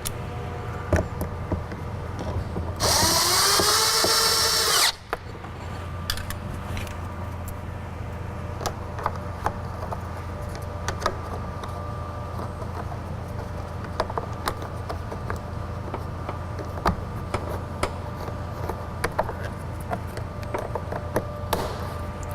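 A power drill runs once for about two seconds, its pitch rising as it spins up, while a door panel is being refastened. Scattered clicks and taps of trim parts being handled follow, over a steady low hum.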